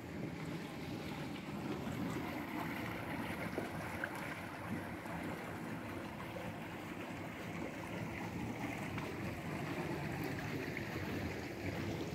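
A steady, even rushing noise with no clear pitch.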